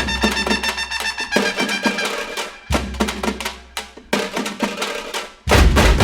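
Background music with drums: repeated percussion strokes over deep bass hits, the heaviest hit coming near the end.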